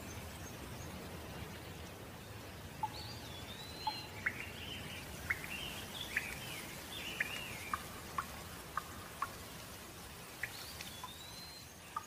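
Steady rain with a songbird singing a run of varied whistled, sliding notes from about three seconds in, its opening phrase repeated near the end. Scattered sharp ticks of falling drops sound through the middle.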